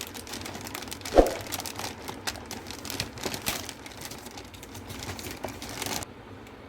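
Packaging handled by hand: crinkling and rustling with scattered light clicks, and one sharp knock about a second in.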